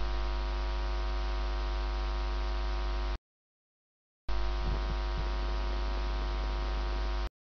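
Steady electrical mains hum with a buzzy row of overtones and a hiss underneath. It cuts to dead silence for about a second a little after three seconds in, resumes, and cuts out again near the end.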